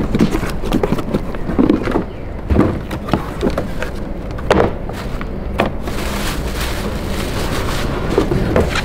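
Unboxing handling noise: cardboard packaging knocking and scraping over the first few seconds, then plastic wrapping crinkling and rustling from about six seconds in as a wrapped part is pulled out.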